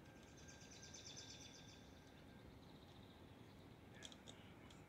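Faint outdoor quiet with a high, rapidly pulsing trill for the first couple of seconds, then a few short high bird chirps about four seconds in.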